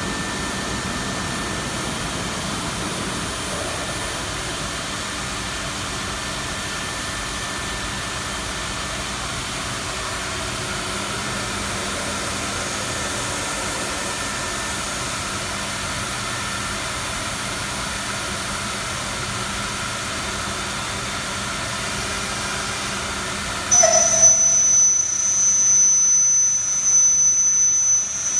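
A multi-axis CNC router running: a steady machine hiss with a low hum, then about 24 seconds in a sudden, louder, high-pitched whine as the router spindle starts spinning.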